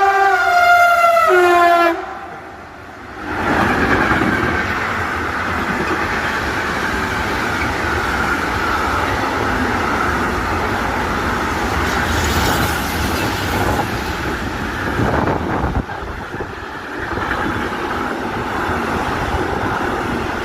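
Horn of a Siemens Vectron electric locomotive sounding a chord that changes pitch, which cuts off about two seconds in. After a short lull, the train comes through with a steady rolling rumble of wheels on rail.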